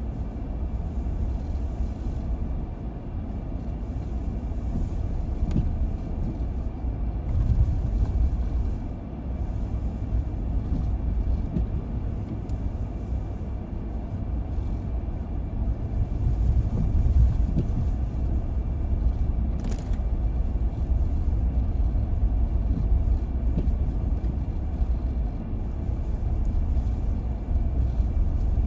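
Car driving: steady low rumble of the engine and tyres on the road.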